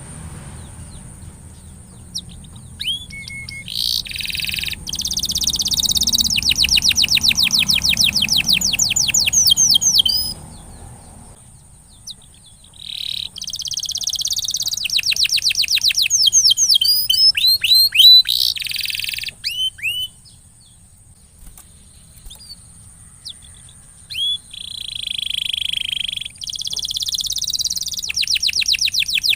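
Domestic canary singing: three long phrases of fast rolling trills and rapid repeated chirps, with short pauses between them.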